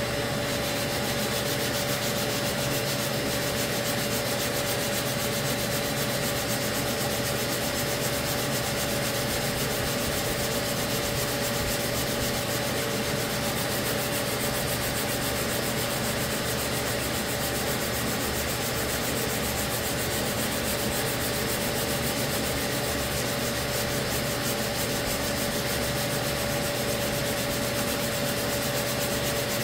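Hand block-sanding of cured body filler on a car's wheel arch: continuous rubbing strokes of abrasive paper, smoothing the filler before primer. A steady hum runs underneath.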